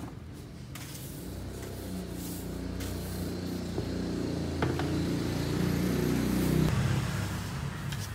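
A motor vehicle's engine running and growing louder over several seconds, then cutting off abruptly near the end.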